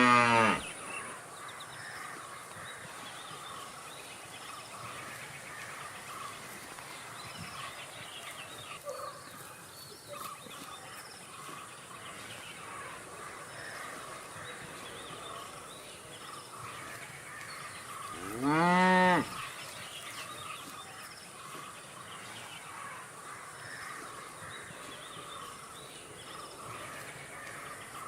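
Cow mooing: the end of one moo right at the start, then a single moo about two-thirds of the way through that rises and falls in pitch. Faint steady background noise in between.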